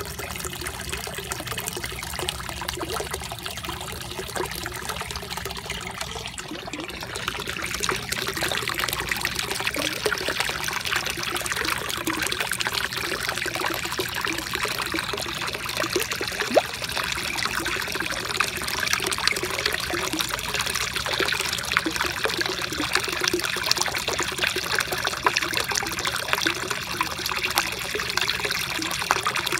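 Pond water trickling and splashing steadily, louder from about seven seconds in.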